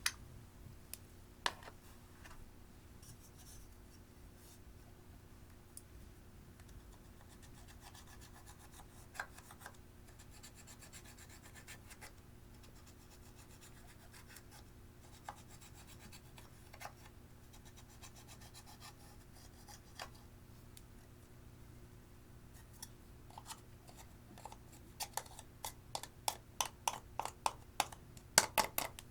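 Clear slime being worked by hand: scattered sticky clicks and pops, then a quick run of about three to four clicks a second in the last few seconds.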